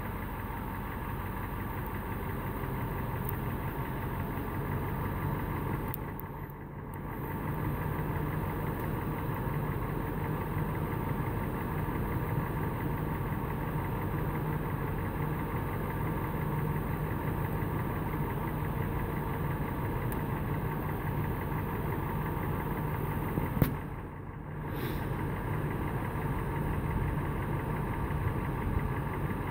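A vehicle engine idling steadily, a low even drone that dips briefly twice; one sharp click sounds late on.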